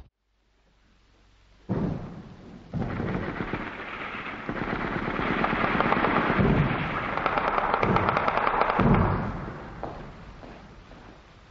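British artillery barrage in an old field recording: many guns firing in a dense, continuous rumble of reports that swells to its loudest in the middle and fades toward the end. It comes in after a second or two of near silence.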